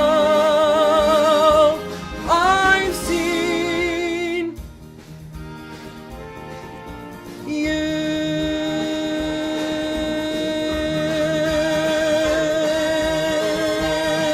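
Musical-theatre ballad with accompaniment, ending on long held sung notes. A note with vibrato slides up to a new note about two seconds in, the music softens for a few seconds, then the voice holds one long final note with vibrato.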